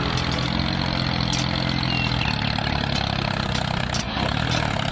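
Tractor engine running steadily at low revs, an even low hum.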